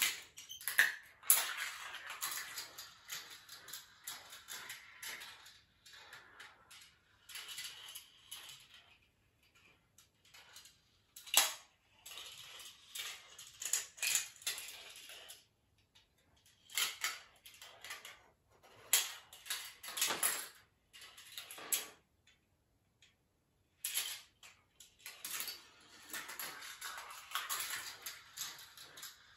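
Marbles running through a GraviTrax plastic marble run: stretches of rolling rattle along the rails, broken by many sharp clicks and clacks as marbles drop and strike the pieces, with a brief lull about three quarters of the way in.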